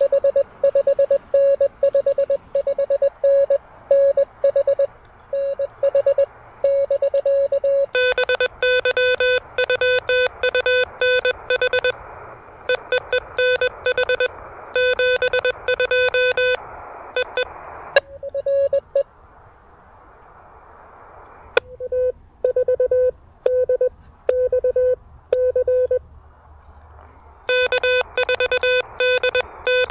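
Morse code (CW) from an Elecraft KH1 handheld transceiver: a single mid-pitched tone keyed rapidly on and off over the receiver's band hiss. About two-thirds of the way through, the keying stops briefly and only the hiss remains.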